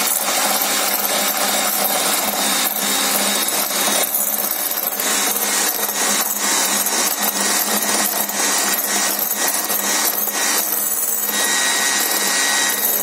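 Electric hand mixer running steadily, its twin wire beaters whipping egg whites to a foam in a glass bowl.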